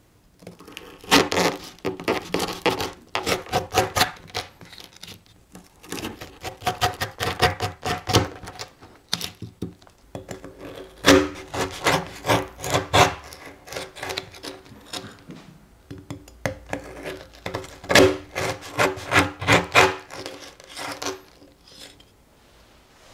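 A knife sawing back and forth through a crusty, once-baked almond biscotti log on a plastic cutting board. It comes in bursts of quick strokes, one burst for each slice, with short pauses between. The log is being cut into slices for the second bake.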